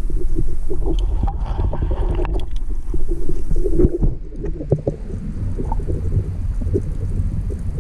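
Underwater sound of moving water: a low, muffled rumble full of small clicks and crackles, with a brief hissing swirl about a second in.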